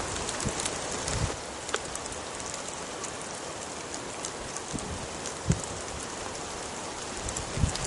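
Steady rain falling, with many small drop ticks and a few short low thumps.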